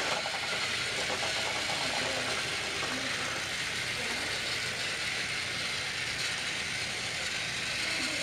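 TrackMaster battery-powered toy train motor whirring steadily as the engine runs along plastic track, with the gears and wheels rattling.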